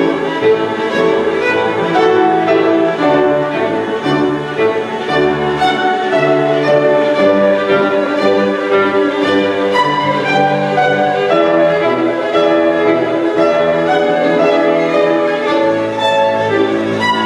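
Solo violin playing a quick passage of many short notes, accompanied by grand piano.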